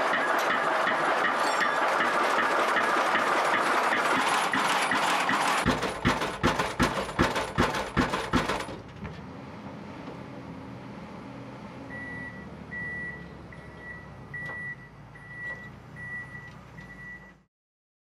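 Pile-driving rig's hydraulic hammer striking a concrete pile, a rapid series of heavy impacts about three blows a second, over the rig running loudly. The hammer stops, the machine drops to a lower running sound, and a rhythmic warning beeper sounds about twice a second near the end.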